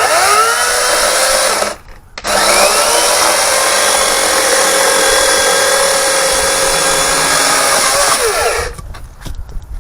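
Greenworks 80V cordless electric chainsaw motor whining up to speed, running briefly and cutting off, then spinning up again about two seconds in. It runs at a steady pitch for about six seconds before winding down near the end.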